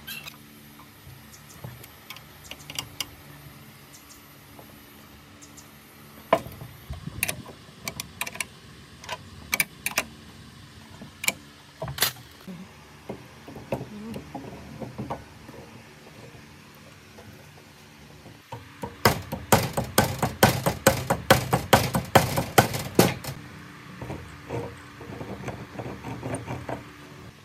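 Metal parts clicking and knocking as the saw's electric motor is put back together by hand: the armature with its cooling fan going into the housing and the end cap being fitted. A quick run of sharp taps lasts about four seconds in the second half and is the loudest part.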